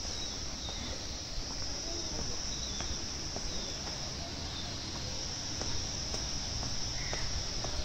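Steady high-pitched drone of an insect chorus over a low, even background rumble, with a few faint short chirps.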